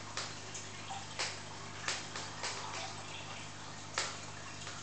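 Aquarium water bubbling and trickling over a steady low hum, with about five sharp drip-like splashes, the loudest near the end.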